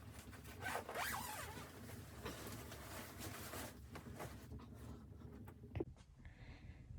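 A zipper being pulled open or shut in several quick strokes, followed by a single sharp click near the end.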